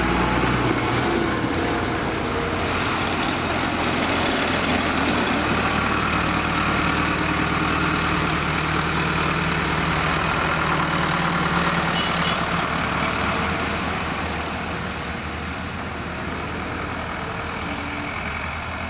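Diesel tractor engines running as tractors drive slowly past one after another, a Case International 885 among them. The sound eases off somewhat after about fourteen seconds.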